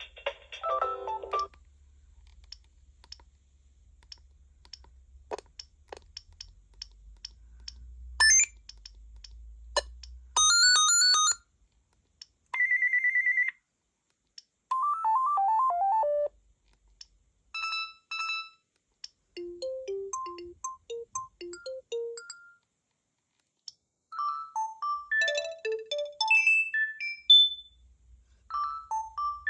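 Gigaset C630A cordless phone playing a run of different ringtones one after another, each lasting a second or two and cut off, with short gaps between. The run includes high chirping trills, a steady buzzing tone, falling note runs, paired beeps and, near the end, a longer melody.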